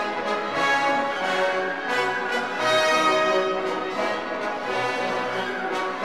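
Orchestral background music with brass, French horns to the fore, playing sustained chords that change about once a second.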